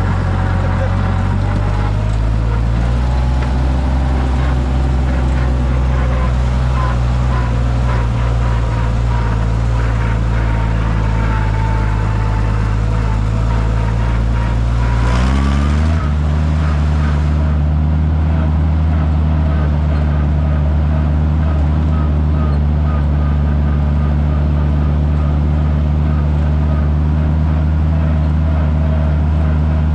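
Minneapolis Moline G900 tractor's six-cylinder LP-gas engine running steadily while driving, fitted with freshly replaced exhaust manifold gaskets. About halfway through its pitch rises quickly, then holds steady at the higher speed.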